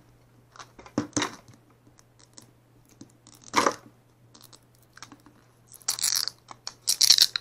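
Plastic Mini Brands capsule ball handled while its sticker seal is peeled off: a few light clicks and taps on the plastic, then a crinkly tearing sound near the end.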